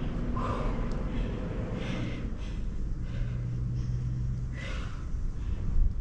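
A woman breathing hard after exercise, with a few audible puffs of breath, over a steady low hum.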